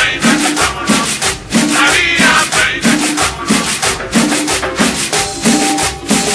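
A cumbia track playing loud: a bass line bouncing on a steady beat of about two notes a second, under shaker and scraped percussion. A held keyboard note comes in about five seconds in.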